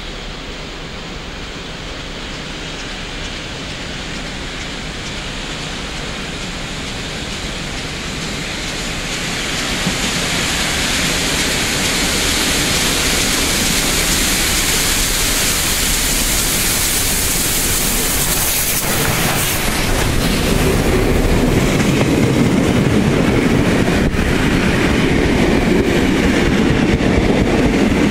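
Steam locomotive and its passenger train approaching at speed, a hissing rail and steam noise that grows steadily louder. About two-thirds of the way through the locomotive passes, and the carriages roll by with a heavier rumble and clatter of wheels on the rails.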